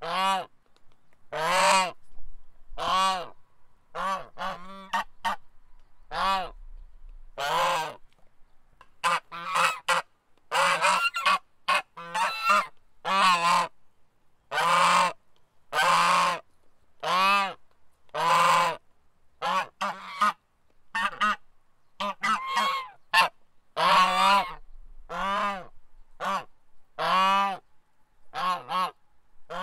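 Goose honking over and over: loud separate honks about once a second, with some shorter honks bunched in quick runs of two or three.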